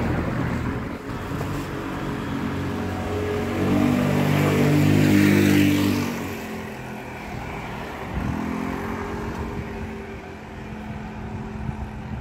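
A motor scooter's small engine goes past at a steady pitch. It grows loudest about four to six seconds in, then fades. A weaker engine sound from another passing vehicle follows a couple of seconds later.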